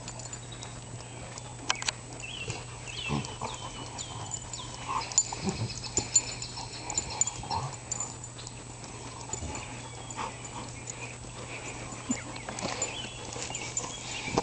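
Two dogs play-fighting: scattered short grunts and growl-like noises with scuffling.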